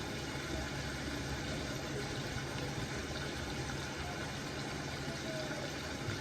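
Steady low hiss and hum of a pot of seasoning cooking in oil on a low stove flame.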